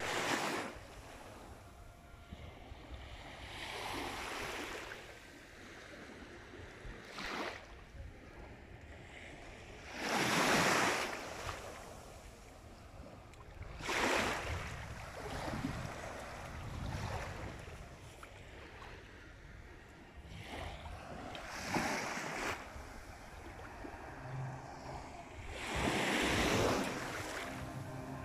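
Small sea waves breaking and washing up the sandy shore, each wash swelling and fading every few seconds.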